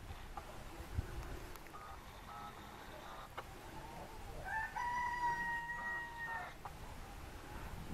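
A rooster crowing once, one long held call starting about four and a half seconds in, with shorter chicken calls before and during it.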